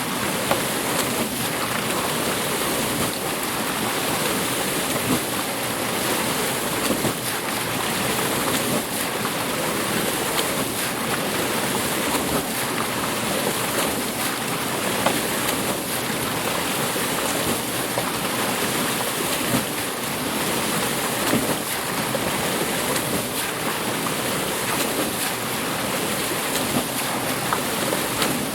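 Water rushing and splashing at a water mill's wheel: a steady wash of noise with small irregular splashes and knocks scattered through it.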